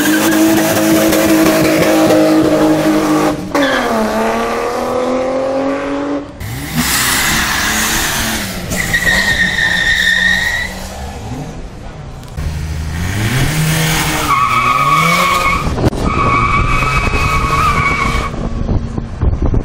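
A BMW E36 3 Series rally car's engine held at high revs, dipping and climbing again. Then rally cars launch away with engines revving and tyres squealing in long, steady screeches, twice.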